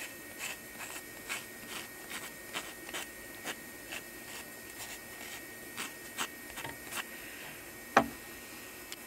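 Sandpaper rubbing against a small wooden axle pin by hand to chamfer its edge: short, faint, regular strokes about two and a half a second, then a single knock about eight seconds in.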